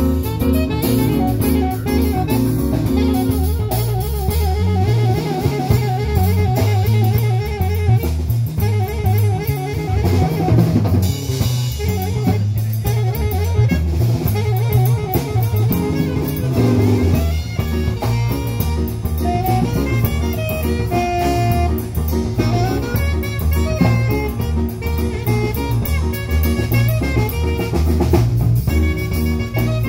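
Live jazz quartet of saxophone, guitar, keyboard and drum kit playing, with the drum kit to the fore: steady cymbal and drum strokes under a melodic line.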